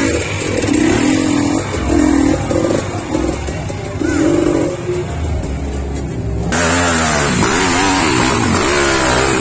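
Dirt-bike engines revving hard in repeated throttle bursts while climbing a muddy slope. After an abrupt change about two-thirds of the way in, the pitch swings up and down over and over.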